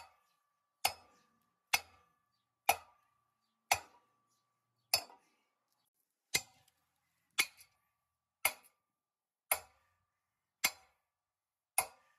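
Sledgehammer striking the steel armature end of a 9,000-pound industrial generator, about one blow a second, a dozen sharp metallic hits, several leaving a brief ringing tone. The blows are meant to knock loose an armature the owner thinks is locked in the stator.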